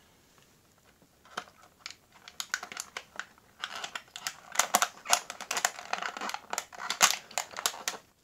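Stiff clear plastic blister packaging crackling and clicking as it is handled and a 1:64 diecast model car is pulled free of it. Sparse at first, then a dense run of crackles through the second half that stops just before the end.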